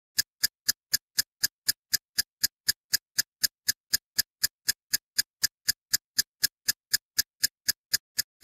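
Countdown-timer ticking sound effect: sharp, evenly spaced clicks about four a second.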